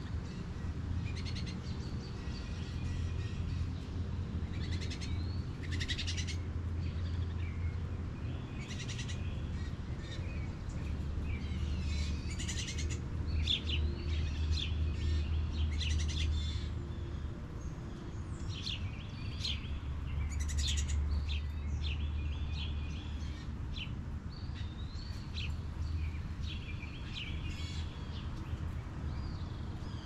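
Wild songbirds calling and singing in many short, high phrases, over a steady low hum.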